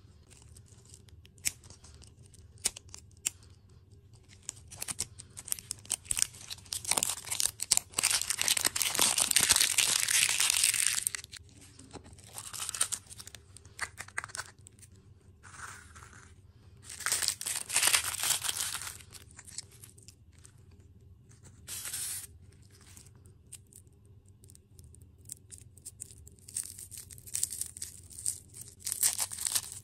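Candy and dessert wrappers being crinkled and torn open in bursts, the longest from about seven to eleven seconds in and another around eighteen seconds.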